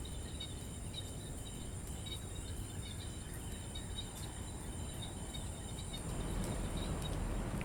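Park ambience after rain: frogs chirping in quick pulsed runs over a steady high-pitched insect-like whine, a few scattered water drips, and the low hush of a distant city that swells slightly near the end.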